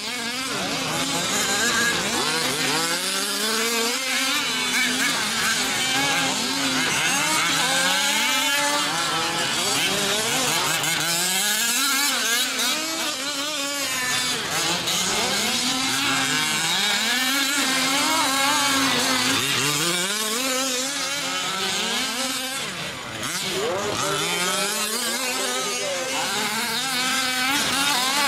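Several 5th-scale RC off-road trucks' small two-stroke gas engines revving up and down as they race, their pitch repeatedly rising and falling every second or two with the engines overlapping.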